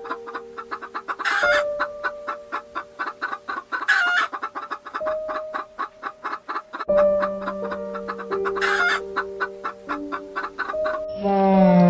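Domestic chickens clucking in a rapid run of short clucks, with three louder calls about a second in, around four seconds and near nine seconds.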